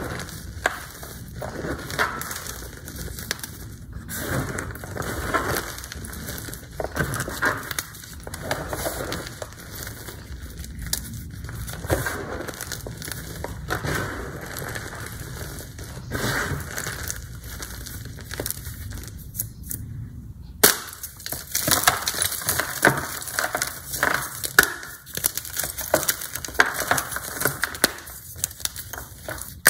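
Hands crushing and squeezing loose gym chalk powder and crumbs, a dense crunching crackle. After a sudden cut about two-thirds in, the hands snap and crumble a hard block of gym chalk, with sharper, more separate cracks.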